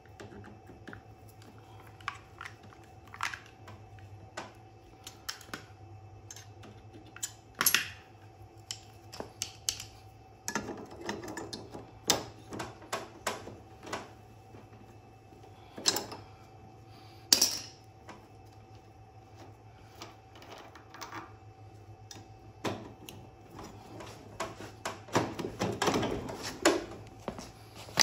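Hand tools working on a go-kart's metal front hub: irregular metal clicks, clinks and taps, a few of them sharp and loud, with short bouts of scraping. A faint steady hum runs underneath.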